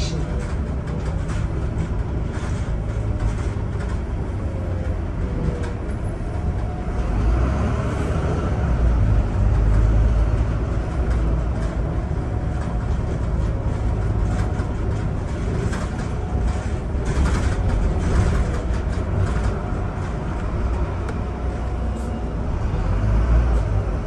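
London double-decker bus running, heard from inside on the upper deck: a steady low engine and road rumble that swells a couple of times, with scattered rattles and clicks from the bodywork.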